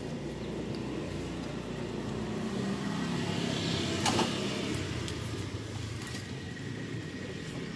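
Low rumble of a passing road vehicle, swelling to a peak about halfway through and fading again, with a short click near the middle.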